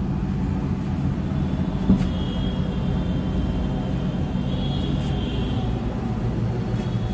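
Road traffic on a busy city main road: a steady rumble of passing vehicles and engines. A single sharp knock about two seconds in.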